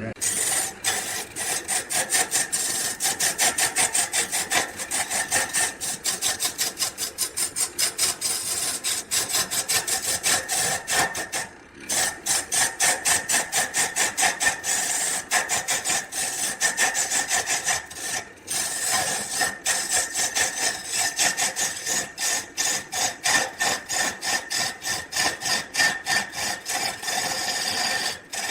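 A hand tool rasping back and forth on wood in quick, even strokes, about four a second, with short breaks about twelve and eighteen seconds in.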